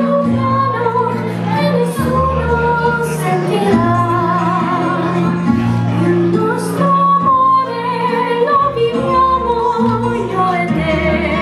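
A young woman singing solo into a handheld microphone, amplified through a PA, with vibrato on her held notes, over an instrumental accompaniment with a low bass line.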